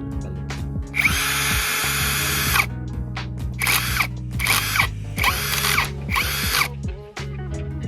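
Ingco brushless cordless drill/driver driving screws at a low torque setting: one run of about a second and a half, then four shorter trigger bursts, each with the motor whine rising as it spins up and falling as it stops. Background music plays throughout.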